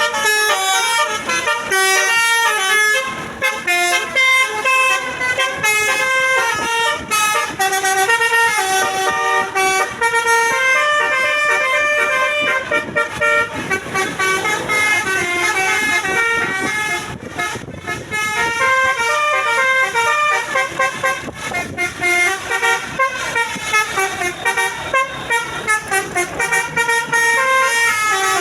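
A bus telolet horn, a multi-tone air horn, playing a rapid melody of stepped notes, the pitch changing several times a second. It runs almost without pause, with a brief break about two-thirds of the way through.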